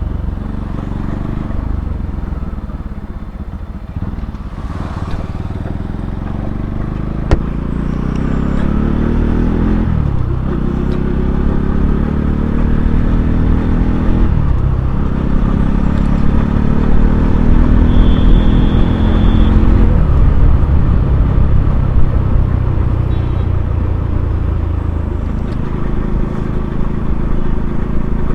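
Motorcycle engine accelerating while riding, its pitch climbing through a gear and dropping at each shift, about three shifts in a row, then running on more steadily. A sharp click comes about 7 seconds in, and a short high-pitched beep about 18 seconds in.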